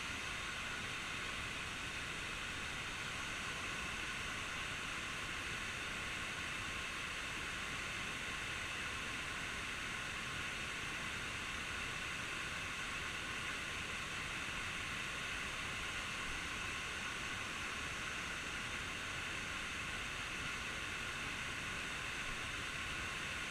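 Steady, unbroken rushing of a waterfall.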